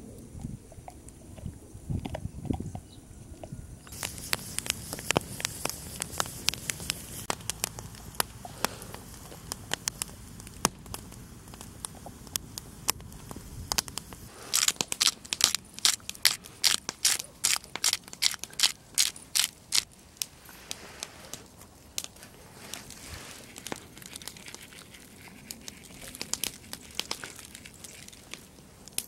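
Dry crunching and crackling: a dog gnawing a bone, then a wood campfire crackling, with a dense run of sharp pops and snaps about halfway through.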